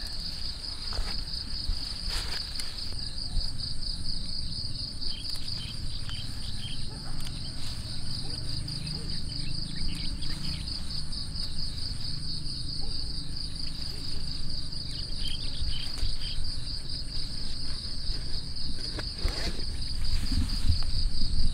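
Insects trilling: one steady, high, rapidly pulsing note that runs on unbroken, over a low rumble, with a soft knock about two seconds in and another near the end.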